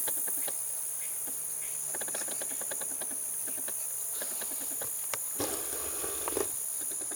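Steady high-pitched drone of insects, with scattered small clicks and a brief rustling noise about five and a half seconds in.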